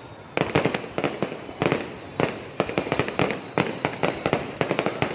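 Fireworks display: a quick barrage of sharp bangs and pops, several a second, starting about half a second in after a short lull, over a steady crackling haze.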